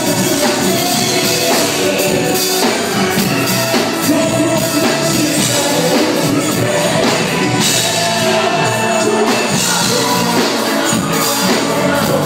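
Live band music played loud, with a drummer on a full drum kit and cymbals driving it.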